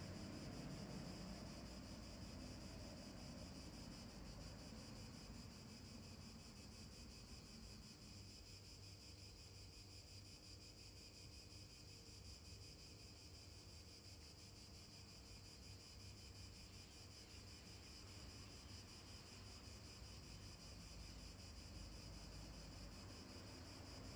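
Near silence: a faint, steady high-pitched hiss over a low background rumble.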